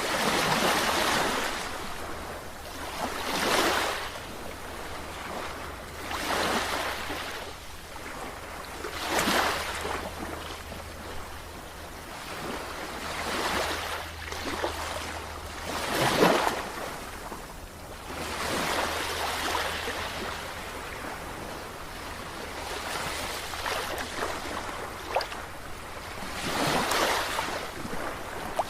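Sea waves breaking and washing in, swelling and fading every few seconds, with the loudest break about 16 seconds in.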